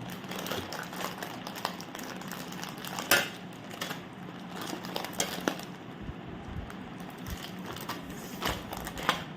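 Plastic snack packet crinkling and crackling as it is bitten and tugged with the teeth to tear it open. The crackles come in irregular bursts, the sharpest about three seconds in, over a faint steady hum.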